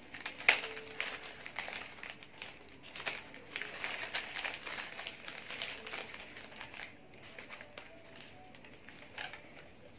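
Sheets of floral wrapping paper crinkling and rustling as they are folded and pinched together at the neck of a bouquet, in irregular crackles that grow fainter after about seven seconds.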